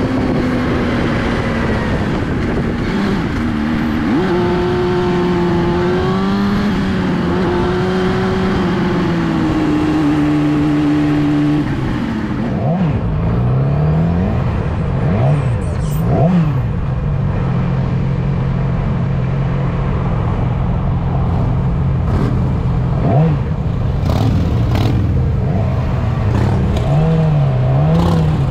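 Motorcycle engine running under way over a steady low rushing noise. Its pitch jumps up about four seconds in and drops back around twelve seconds, followed by several quick dips and rises as the throttle is eased and reopened.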